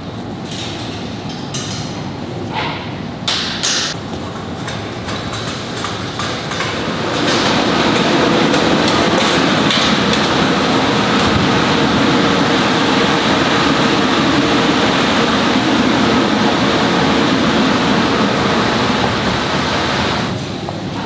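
Factory machine noise. For the first several seconds a metal wire rack knocks and rattles. About seven seconds in, a loud steady rushing machine noise starts, and it falls away shortly before the end.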